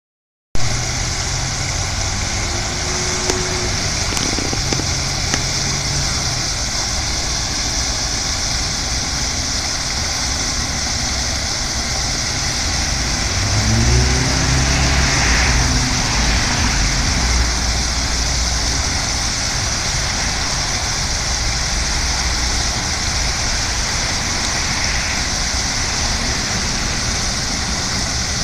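Fountain water jet and ring of arcing sprays splashing steadily into the basin, a constant hiss of falling water, over a low rumble that swells about 14 seconds in.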